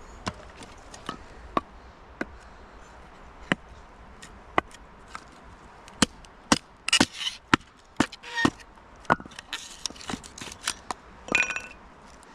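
A series of short, sharp knocks and snaps, scattered at first, then about two a second. There are two brief crackling rustles, one about seven seconds in and one near the end.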